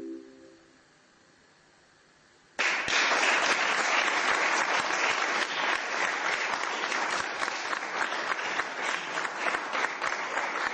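The last chord on a mallet keyboard instrument rings and fades out within the first second. After a short silence, audience applause breaks out suddenly about two and a half seconds in and continues steadily.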